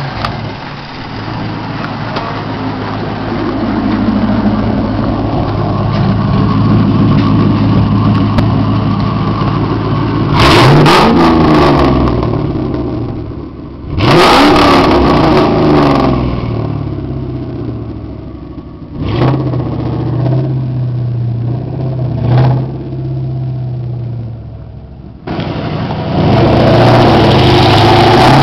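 2001 Ford Mustang GT's 4.6-litre V8 running loud through a catless exhaust with an X-pipe and chambered Turbo Tube mufflers. It idles steadily, is revved twice in long pulls about ten and fourteen seconds in, blipped twice more briefly, then pulls away under acceleration near the end.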